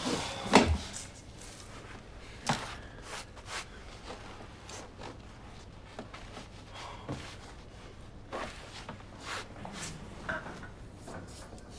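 Scattered rustles and small knocks of people shifting and handling things in a small room, with a sharper knock about half a second in and another about two and a half seconds in.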